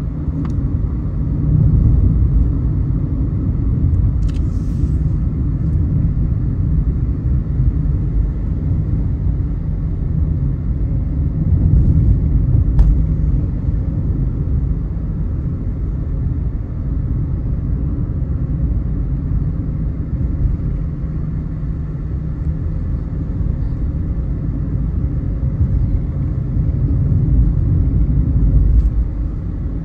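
Car driving along a road: a steady low rumble of engine and tyre noise, with a brief hiss about four seconds in.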